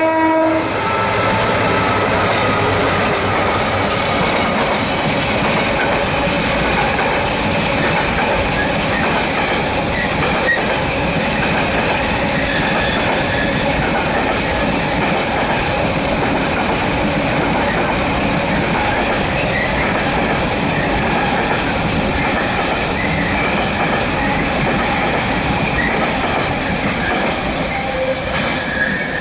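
A long freight train of hopper wagons rolling steadily past at speed, a continuous wheel-on-rail rumble with faint intermittent high wheel squeal. In the first half-second the last of a two-tone horn note from the Class 66 locomotive dies away.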